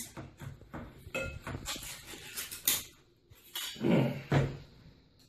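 Metal can of luncheon loaf being handled and opened on a table: a run of small clicks and scrapes with a couple of brief metallic clinks about a second in, and a louder, lower sound about four seconds in.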